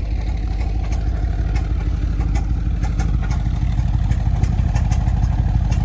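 Jeep's Hemi V8 engine idling with a clattering tick over its steady running, the noise the owner puts down to a worn-out camshaft, with a misfire in cylinder 4.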